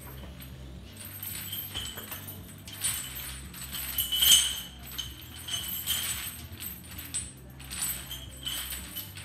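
Heavy steel chain hung from a lifting belt jangling and clinking with each squat rep, in bursts about every one and a half to two seconds, the loudest about four seconds in.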